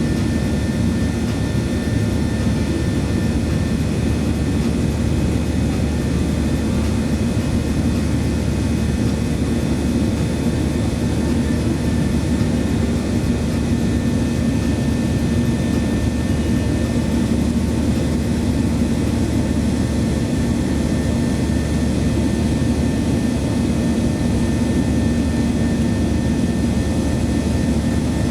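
Boeing 737-800 cabin noise from CFM56-7B turbofans running steadily at high power, heard inside the cabin: an even rush of engine and air noise with a few steady hum tones and no change throughout.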